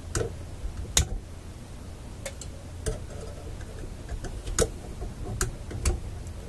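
Diagonal wire cutters snipping off excess wire leads in a tube amplifier chassis: a series of sharp clicks, about seven in all, the loudest about a second in.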